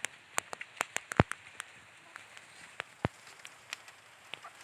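Raindrops striking a hard surface close to the microphone: irregular sharp ticks, coming quickly for about the first second and a half, then sparser, over a faint hiss of rain.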